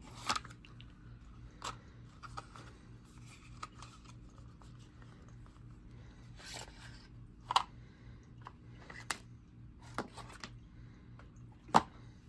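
Playing cards being laid down one at a time on a wooden table: about eight short, sharp card taps and slaps, the loudest near the middle and near the end, over a steady low hum.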